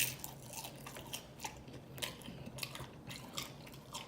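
A person chewing a mouthful of Doritos nachos. The tortilla chips crunch in quick, irregular crackles, a few a second.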